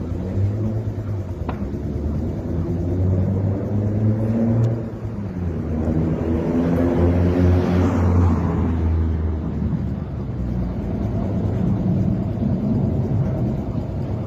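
Motor vehicle engine running with a steady low rumble, growing louder about halfway through as it passes close and then easing off again.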